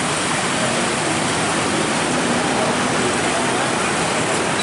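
Steady, dense roar of road traffic: heavy trucks and many motorcycles moving close by.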